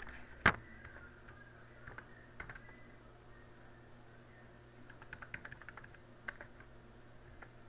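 Keystrokes on a computer keyboard as a username and password are typed, sparse at first and quicker in the second half, with one sharper click about half a second in.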